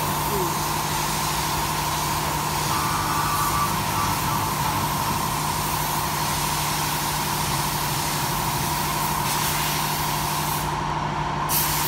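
Steady mechanical hum and hiss of workshop machinery running, with a constant low drone and a higher steady tone over even noise.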